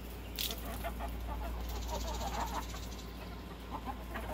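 Several backyard hens clucking softly and intermittently as they forage, with a brief scratchy noise about half a second in.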